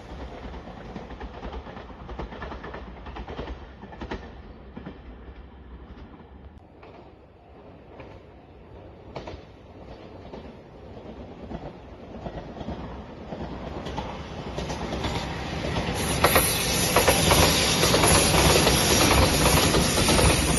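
Train running on the track with clacking wheels. Its noise dies down toward the middle, then builds again as a train draws close and passes loudly in the last few seconds.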